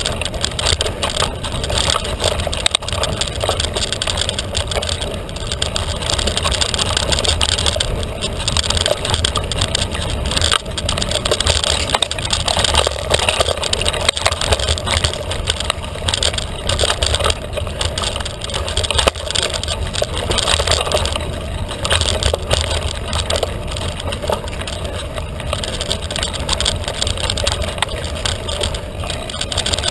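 Felt carbon 29er mountain bike ridden fast on a dirt trail: a steady rush and low rumble with tyre crunch and frequent rattles and knocks from the bike.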